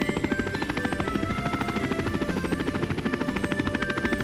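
Cartoon quadcopter sound effect: a rapid, steady rotor chop at about a dozen beats a second.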